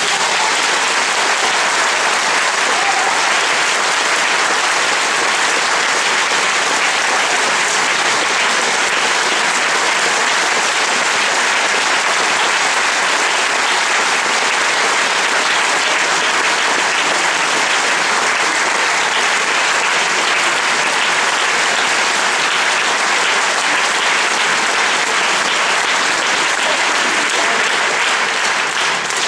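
A large theatre audience applauding steadily: the sustained clapping of a full house after an orchestral number.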